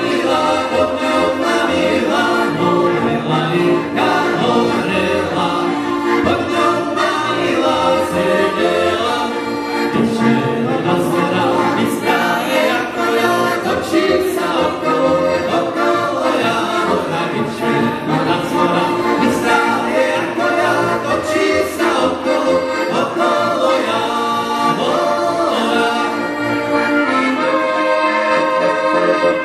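Live band music: an accordion leading, with several men singing together and brass playing along.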